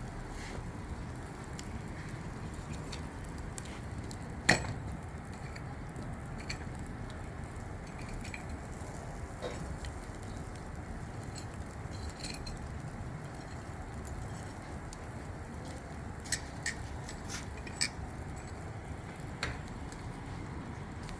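Fish grilling on a charcoal barbecue: a steady low rush with scattered sharp clicks and clinks, the loudest about four and a half seconds in and a few more close together near the end.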